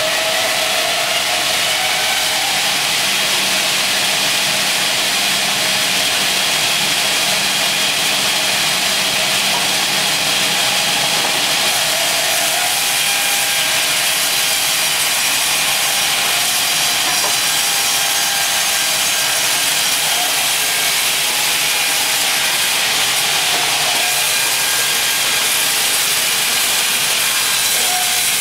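Large band saw resawing a walnut plank, the blade cutting steadily through the wood with a continuous, loud sawing noise.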